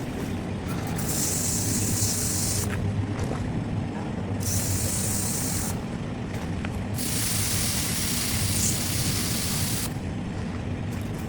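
Hissing in three spells with sharp starts and stops, the last lasting about three seconds, over a steady low hum.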